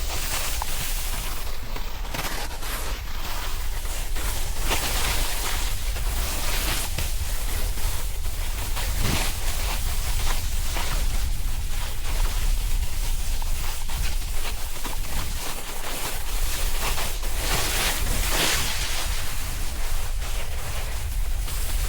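Wind buffeting an action camera's microphone with a low rumble, over the hiss of a snowboard sliding and scraping on snow, the hiss swelling now and then through the turns.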